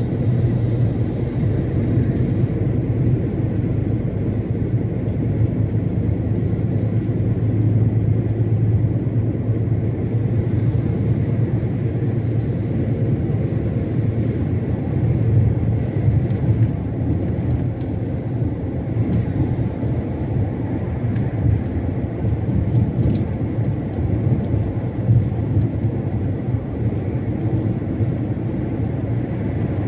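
Iveco Stralis 570 XP truck driving, its 12.9-litre Cursor 13 inline-six diesel running steadily under a constant low hum with road and tyre noise. A few faint light clicks come through about halfway through.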